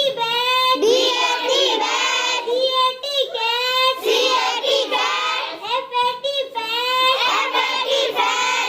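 Young children singing together in a high sing-song melody with held notes.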